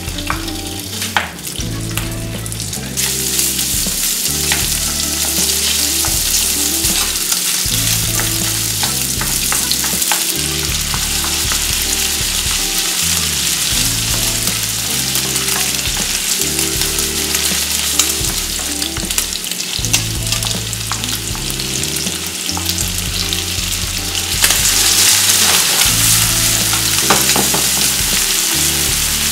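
Pork belly pieces sizzling and frying in sesame oil in a nonstick frying pan, stirred with a wooden spoon that clicks and scrapes now and then. The sizzle grows fuller about three seconds in, and louder again about five seconds before the end, with chopped kimchi in the pan.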